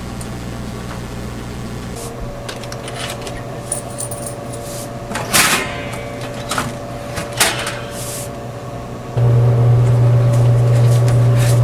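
Snack vending machine's pickup flap knocking and clattering several times as an arm reaches into the bin, over a steady low electrical hum. About nine seconds in, the hum turns much louder.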